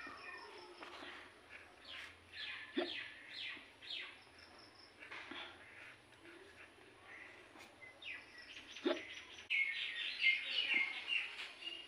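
Songbirds chirping and twittering in quick repeated notes, busiest and loudest near the end, with two short sharp sounds, one about three seconds in and one about nine seconds in.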